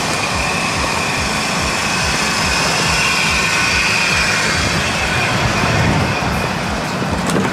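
Toyota Celica GT-S driving on its stock exhaust, with steady engine and road noise.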